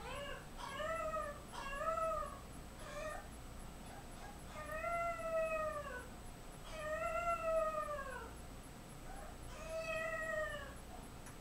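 Seven-week-old French bulldog puppy crying: several short high cries in the first three seconds, then three long drawn-out wails that rise and fall in pitch. This is separation distress: the puppy cries when his owner is out of sight.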